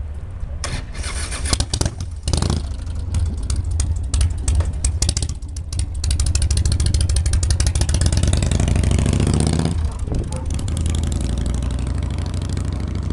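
Twin-engine vintage propeller warplane taking off: its piston engines run at full power with a fast, rhythmic propeller beat. The sound grows louder and shifts in pitch as the plane climbs away, then falls off a few seconds before the end.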